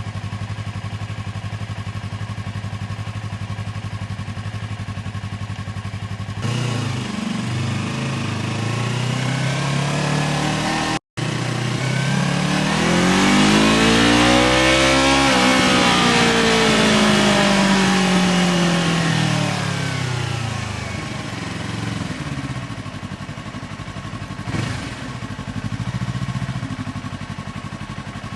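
Yamaha R3's 321 cc parallel-twin engine, fitted with an SC-Project aftermarket exhaust, idling steadily for about six seconds. It then revs up as the bike pulls away, climbing in pitch to a peak about fifteen seconds in. The note then falls away under deceleration and settles into a lower, uneven running note. The sound cuts out for an instant about eleven seconds in.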